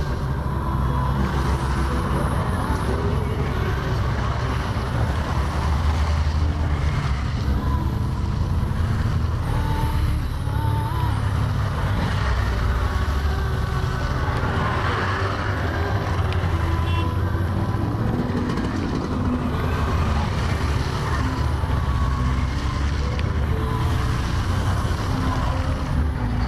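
A procession of motorcycles riding past one after another on a wet road, engines running steadily as bike after bike approaches and passes.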